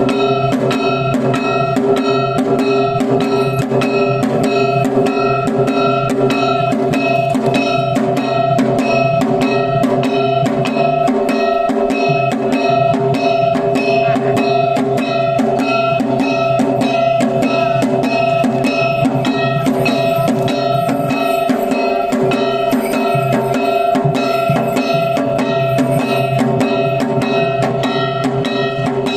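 Kagawa lion dance (shishimai) music: drums beaten in a fast, even rhythm over steady ringing pitched tones.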